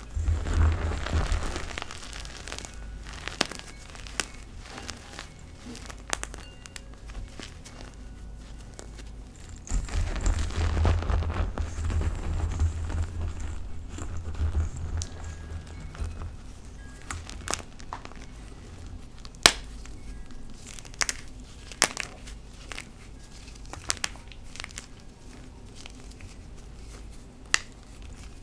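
Hands squeezing and crushing loose gym chalk powder and small chunks in a bowl: soft crunching and crumbling, heavier for a few seconds near the start and again about ten to fifteen seconds in, with scattered sharp crackles later on.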